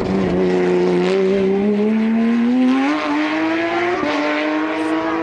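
Porsche 911 GT rally car's flat-six engine accelerating hard, its note climbing steadily, with a short break about four seconds in as it shifts up before rising again.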